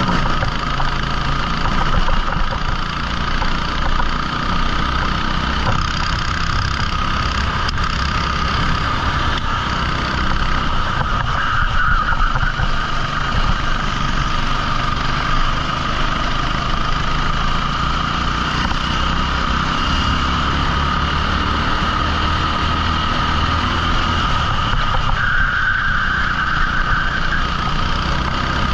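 A 14 hp rental kart engine running steadily, its note rising and falling a little.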